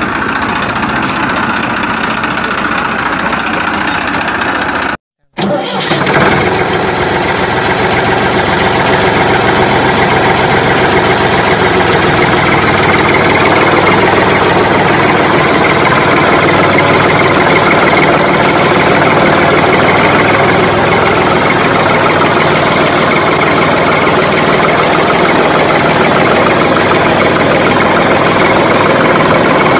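Loud, steady tractor engine sound running with no change in pitch. It drops out for about half a second around five seconds in, then carries on.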